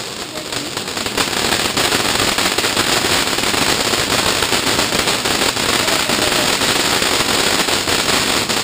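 Ground fountain firework spraying sparks: a loud, steady hiss thick with fine crackling, which grows louder about a second in.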